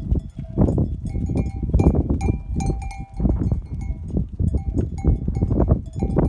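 Livestock bells clanking several times, each clang ringing on briefly, over repeated dull thumps and rumbling from the animals moving.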